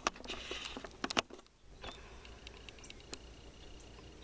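Handling noise: a few light clicks and knocks, one near the start, two close together about a second in and one about three seconds in, over a low steady hum.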